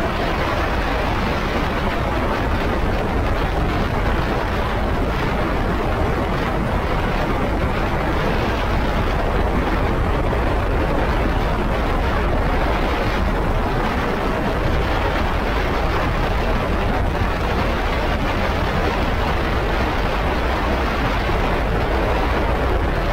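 Suzuki Jimny driving along at road speed: a steady rush of road and wind noise.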